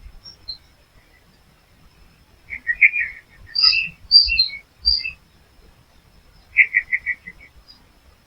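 Small songbirds chirping in short, separate phrases. A cluster of chirps comes about two and a half seconds in, higher, clearer notes follow around four to five seconds, and a quick trill of repeated notes comes near the end.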